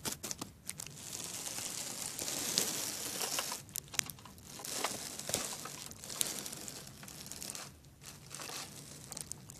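Crinkling and rustling with scattered light clicks, coming in uneven bursts with short lulls between them: handling noise from plastic Schleich toy figures being moved about by hand.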